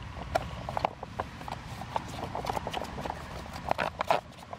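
Wooden stick stirring glue and shaving cream in a disposable aluminium foil pan, clicking and crinkling against the thin foil in quick irregular taps, with a bunch of louder clicks near the end. A steady low rumble of wind on the microphone lies under it.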